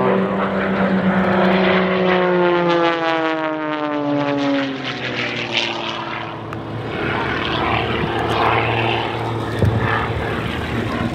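Edge 540 aerobatic monoplane's six-cylinder Lycoming engine and propeller droning in flight. The pitch falls steadily over the first five seconds, then settles into a lower, rougher drone.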